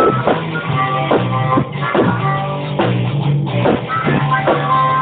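Live rock band playing: electric guitar with drums keeping a steady beat.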